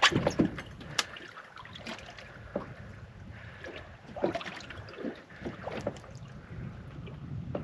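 Water lapping against a small boat's hull, with wind on the microphone and scattered light knocks and clicks of gear being handled aboard.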